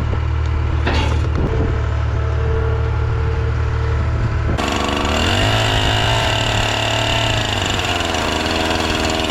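A sawmill's engine running steadily. About halfway through, a high whine joins in as the blade starts cutting through the log.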